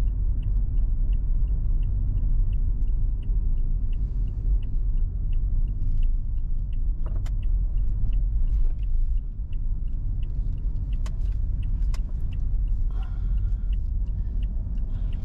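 Car running with a steady low rumble, with a light, even ticking about three times a second over it and a few sharp clicks.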